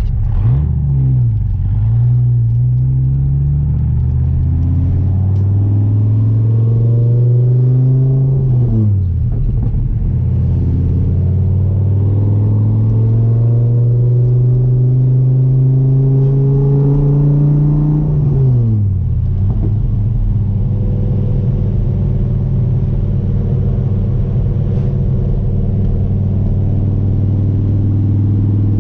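Dodge Viper's V10 engine pulling through the gears while driving. Its pitch climbs slowly and then drops sharply at each upshift, about a second in, about nine seconds in and about nineteen seconds in. After that it settles to a steady cruise.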